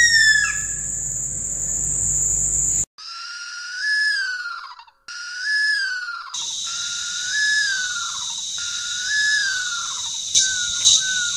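Spot-bellied eagle owl calling: a falling call, then a series of drawn-out whistled wails, each rising and then falling away, repeated every second or two, with shorter notes near the end. A steady high hiss runs under the later calls, and two sharp clicks come near the end.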